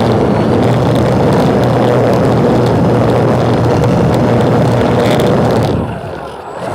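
Propeller aircraft engine running steadily, with wind buffeting the microphone; the sound drops away briefly near the end.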